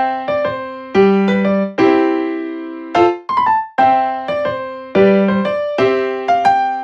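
Background music: a light electric piano tune of short struck notes and chords, in a phrase that repeats about every two seconds.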